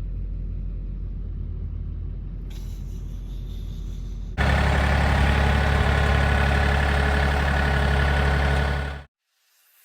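An engine running steadily with a low, even hum. About four seconds in it abruptly becomes louder, then cuts off suddenly near the end.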